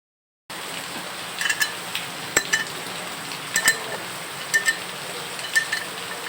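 Sharp metallic clinks of tools against metal, roughly once a second and often in quick pairs, each with a brief ring, over a steady hiss.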